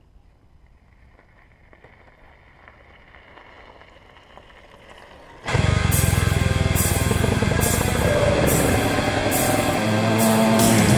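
Faint low sound for the first few seconds, then loud heavy rock music with guitar and a steady drum beat starts suddenly about five and a half seconds in.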